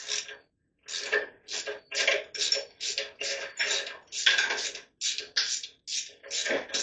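Hand ratchet working a bolt loose on a small-block Chevy 350 engine, a rapid rhythm of short clicking strokes, about two to three a second.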